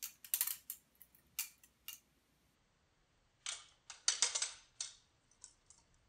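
Kershaw Lucha butterfly knife (balisong) being flipped and twirled: a quick run of sharp clicks and clacks as the handles swing round and strike, a pause, then another run of clacks from about three and a half seconds in.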